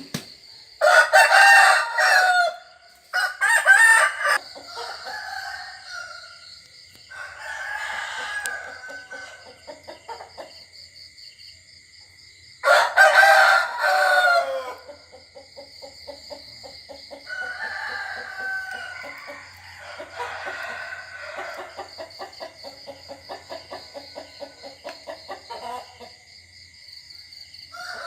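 Roosters crowing: loud crows about a second in and again near the middle, with fainter crows and soft clucking between.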